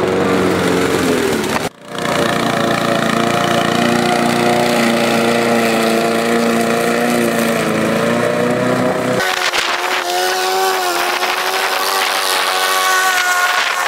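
Petrol push lawn mower engine running steadily as the mower cuts grass, with a brief dropout about two seconds in.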